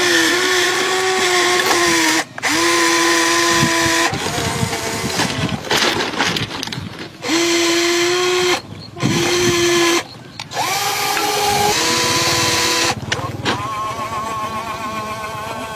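Small electric motors of an RC Caterpillar 336D model excavator whining in runs of one to three seconds, some rising in pitch as they spin up, as the tracks and arm work it over a railway rail. Under the whine, irregular clicking and grinding of ballast stones under the tracks.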